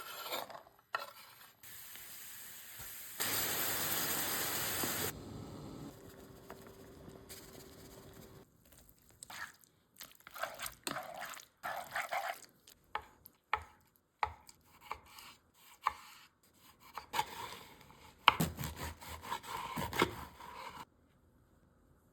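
Kitchen cooking sounds for a pasta dish: a few seconds of steady hiss, then a busy run of short clinks, scrapes and knocks of utensils against pots and pans, stopping abruptly near the end.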